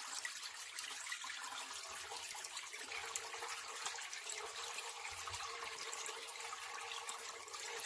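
Wash water draining from a KUPPET mini portable washing machine through its drain hose with the knob set to drain: a steady pouring trickle.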